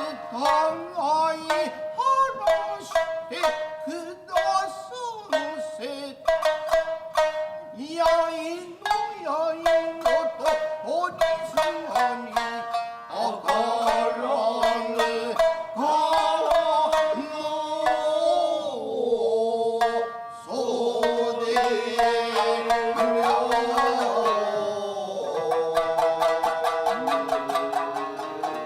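Tokiwazu music: shamisen playing a run of quick, sharply plucked notes, then in the second half long, drawn-out wavering notes, one sliding down in pitch, over the plucked strings.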